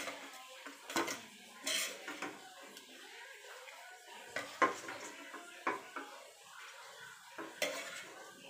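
Irregular clinks and knocks of a spoon and food pieces against a stainless steel pot and a plastic bowl, as cooked pork steak is moved from the bowl into the pot.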